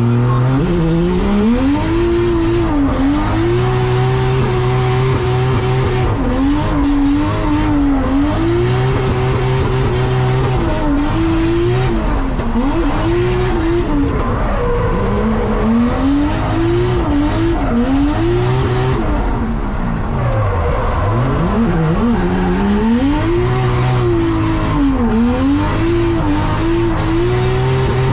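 A drift car's engine revving hard and easing off again and again, its pitch swinging up and down every second or two, with tyres squealing as the car slides.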